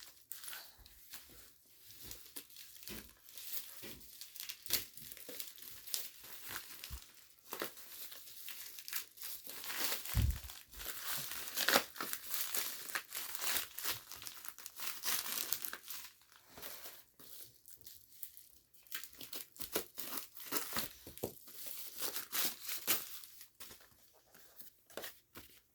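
Shipping packaging being opened and unwrapped by hand: irregular crinkling, rustling and tearing, with a single dull thump about ten seconds in.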